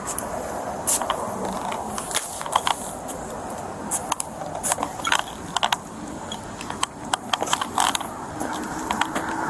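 Irregular sharp clicking and rattling of small hard objects being handled, a click or two a second, over steady roadside background noise.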